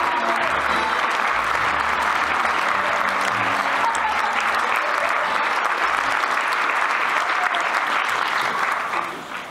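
Theatre audience applauding the cast at a curtain call: dense, steady clapping that dies away near the end.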